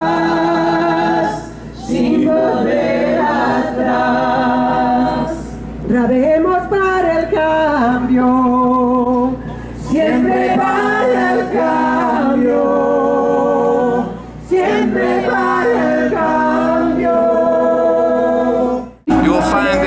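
A group of voices singing in harmony without instruments, in phrases of held notes with short breaks between them; the singing cuts off abruptly near the end.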